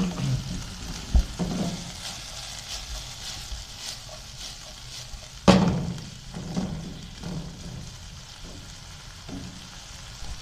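Chicken pieces and chopped onion sizzling in hot oil in a nonstick frying pan while a wooden spatula stirs them, scraping and knocking against the pan. The loudest knock comes about halfway through.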